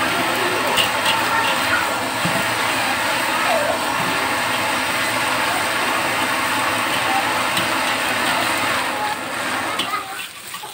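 Egg and vegetables sizzling in a hot steel wok, stirred and scraped with a metal spatula: a steady frying hiss with occasional light scrapes and clicks, dropping off near the end.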